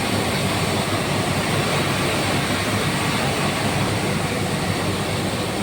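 Asian 22 kW (30 hp) fixed-speed rotary screw air compressor running steadily under commissioning: an even machine whir with a constant low hum.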